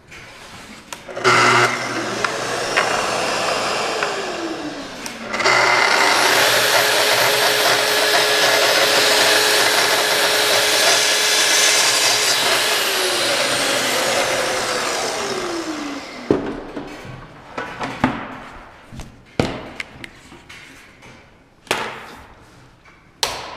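Festool track saw spinning up and winding down briefly, then starting again and cutting through a cabinet filler for about seven seconds before winding down. Knocks and clicks follow near the end as the saw is handled.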